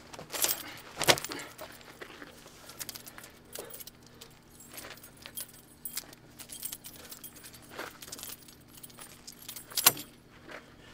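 Clothing rustling and things being handled at an open car trunk, with light jingling and scattered sharp clicks. A louder knock comes about a second in and another near the end.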